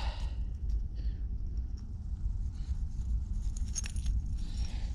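Fingers scraping and picking loose soil away from a buried glass bottle: faint gritty rustling with a few small clicks, most about four seconds in, over a steady low rumble.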